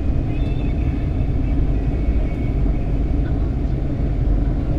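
Steady low rumble of vehicles and engines running, with no single event standing out.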